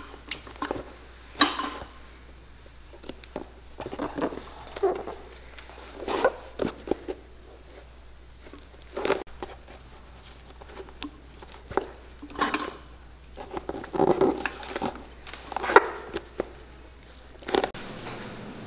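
Hand-stitching: waxed ribbon thread pulled through the holes of a PVC boot welt, a series of short, irregularly spaced pulls with small clicks.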